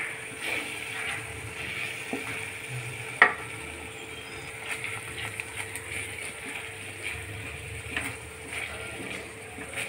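Wooden spatula stirring and scraping chopped tomatoes in an aluminium kadai, over a steady low sizzle of the tomato curry frying. There is one sharp knock about three seconds in.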